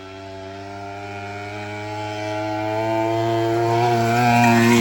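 Mini bike's Predator 212 single-cylinder four-stroke engine running at a steady speed, growing steadily louder as the bike approaches.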